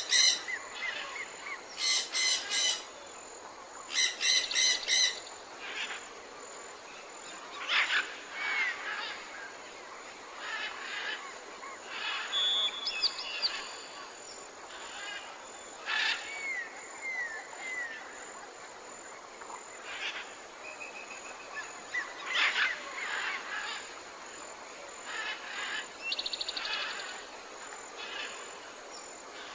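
Tropical jungle birds calling over a steady background haze. Loud, repeated calls fill the first five seconds. After that come scattered chirps and short falling whistles, with a quick trill near the end.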